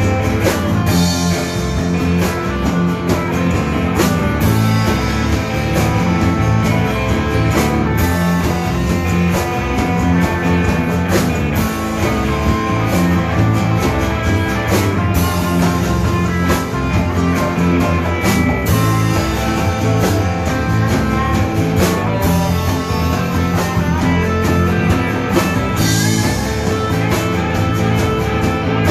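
Live rock band playing: electric guitars over bass guitar and a drum kit, steady and loud.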